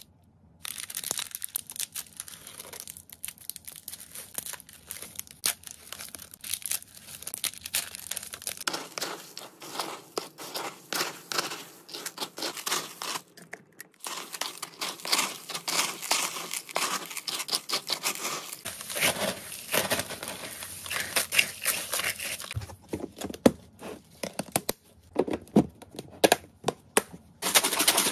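Dry hamster food mix of hay, pellets and seeds being handled in plastic storage bins: a plastic bag crinkling, and pellets rattling and hay rustling as the food is scooped and poured in, in irregular bursts of crackle. Near the end a louder, denser rattle starts as a bin of food is shaken.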